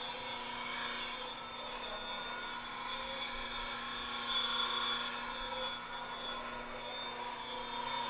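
Bench grinder running with a steel tool held against its 350-grit sharpening wheel: a steady grinding with several high ringing tones over a steady motor hum.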